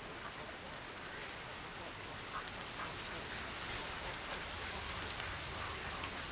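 Plastic grafting tape crinkling with a few short crackles as it is stretched and wound around a thin plant stem, over a steady outdoor hiss.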